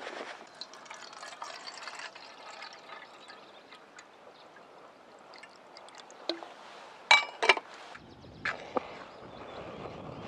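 Liquid fuel trickling into the priming cup of a box-type liquid-fuel camping stove, then a few sharp metallic clinks, the loudest two close together about seven seconds in.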